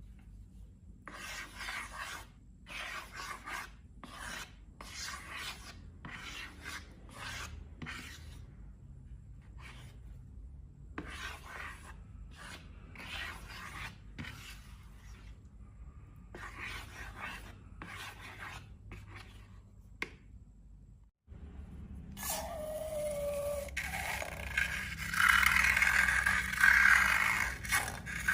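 Slime being worked with a tool: a run of short, repeated scraping strokes. After a brief break comes a louder, continuous scraping and rustling with a short falling squeak.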